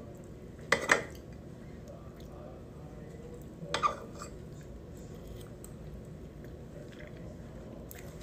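Metal forks clinking on a plate of cake, twice: about a second in and again just before four seconds, with quiet room noise in between.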